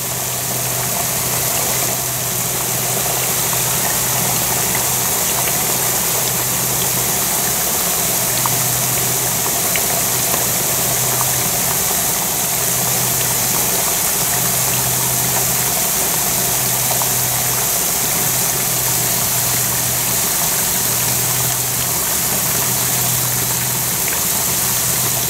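Kettle of water and melting beeswax cappings boiling hard: a steady bubbling, hissing rumble with a low hum underneath.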